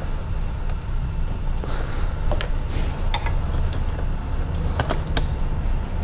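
Sharp plastic and metal clicks, about six of them, as hands and a small tool work a stuck wiring connector clip under a car seat frame, over a steady low rumble.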